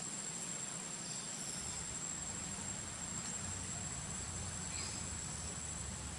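Steady high-pitched drone of insects, crickets or cicadas, with a few faint short chirps over it.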